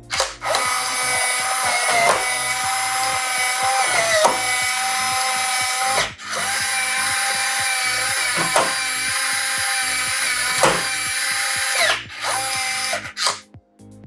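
Nuki Smart Lock Pro 4's motor whining as it turns the key during its automatic calibration. It makes a long run, stops briefly about six seconds in, makes a second long run, then a short one near the end, with the pitch dipping briefly a few times.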